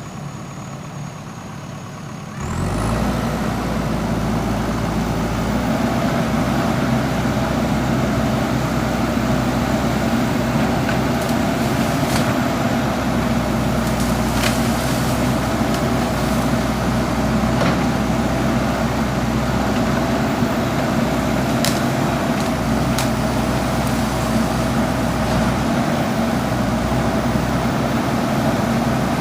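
JCB backhoe loader's diesel engine running steadily while working, with a few sharp clicks and knocks. The engine gets suddenly louder about two and a half seconds in.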